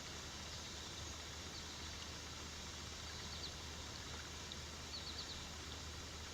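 Steady rush of creek water with faint, high bird chirps coming in short quick runs, about three seconds in and again near five seconds.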